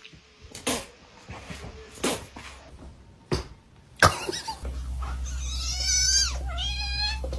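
A few short knocks, then a cat meowing from about halfway through: one long, wavering yowl followed by a shorter meow.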